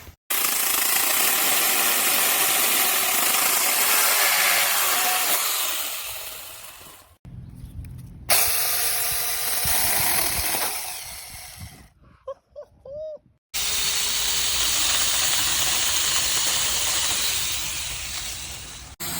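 Small cordless handheld chainsaw running, heard in three long stretches of even rushing noise, each tapering off or cut short.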